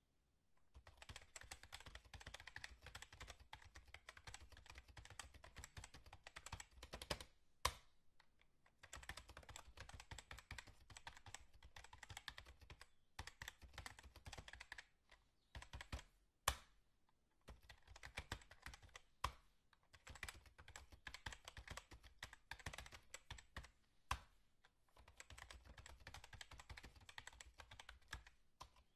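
Rapid typing on a computer keyboard: quick key clicks in runs of a few seconds separated by short pauses, with now and then a single louder key strike.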